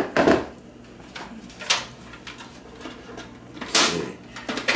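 Hard plastic knocks and clatter as a Magic Mill food dehydrator's base and its stacked clear plastic trays are handled and set down on a counter: a few separate sharp knocks, two close together at the start and another near the end.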